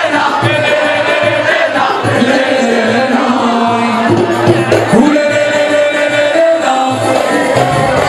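Loud amplified live music with singing over a steady beat, and a crowd cheering along.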